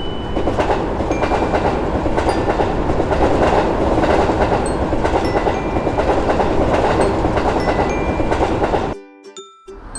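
Train passing at speed, its wheels clattering over the rails in a steady, loud run of noise; the sound cuts off abruptly about nine seconds in and picks up again just before the end.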